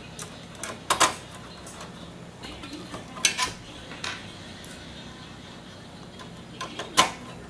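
Small metal parts and a screwdriver clinking and clicking against the TV's sheet-metal light-engine chassis during reassembly: a handful of separate sharp clicks, the loudest near the end.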